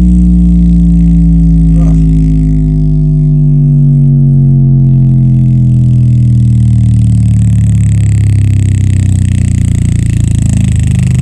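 Subwoofer playing bass-boosted electronic music loudly: a deep, sustained bass tone with a stack of overtones that slides slowly down in pitch.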